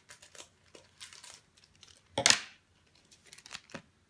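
Foil Pokémon card booster pack being crinkled and torn open, with a loud rip a little over two seconds in among smaller crackles.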